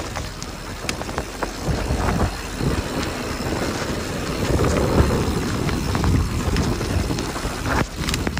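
Mountain bike descending a dirt singletrack at speed: wind buffeting the microphone, swelling about halfway through, over tyre roll and scattered sharp clicks and rattles from the bike.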